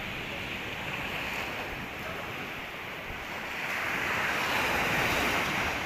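Sea surf washing on the beach, a steady rush that swells louder in the second half, with wind rumbling on the microphone.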